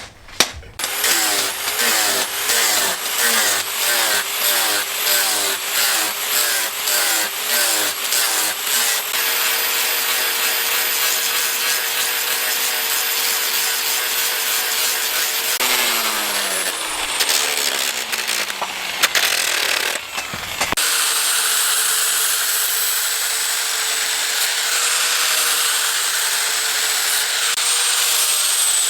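About a dozen regular back-and-forth strokes of a hand tool working material. Then an electric power tool runs steadily, winds down with falling pitch about halfway, and starts again to run steadily.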